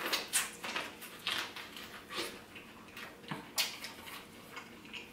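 Close-up chewing of a mouthful of corn on the cob: irregular soft crunches and mouth clicks.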